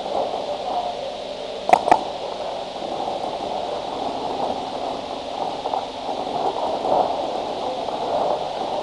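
Two sharp pops about a fifth of a second apart, roughly two seconds in, typical of a paintball marker firing a quick double shot, over a steady muffled noise on the helmet camera's microphone.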